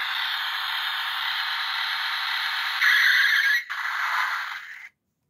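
Road Rippers toy 1957 Chevy Bel Air driving in its forward mode: the engine-rev sound effect from its small speaker over the whir of its motor and plastic gearbox, louder for a moment about three seconds in and stopping just before the end. The owner hears something wrong in the gearbox on the last rev and suspects a split gear.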